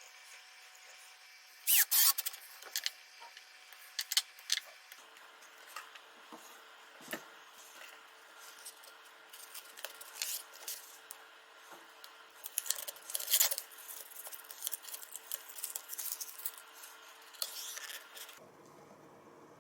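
Irregular clicks, taps and scrapes of hands handling small parts and tools while assembling a subwoofer cabinet, with the loudest knocks about two seconds in and around thirteen seconds in.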